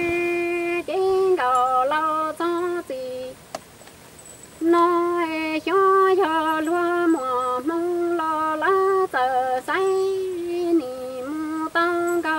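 A woman singing Hmong kwv txhiaj, moving in steps between a few held notes in short phrases, with a breath pause about three seconds in.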